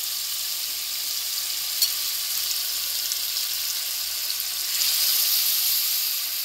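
Marinated chicken pieces frying in hot oil in a non-stick pan: a steady sizzle, with one sharp tick about two seconds in. The sizzle swells louder about five seconds in as a spoon turns the pieces.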